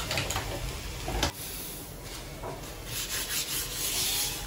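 A cloth rubbing back and forth across the surface of a flat dosa tawa, getting louder from about three seconds in. There is a short clatter with a knock about a second in.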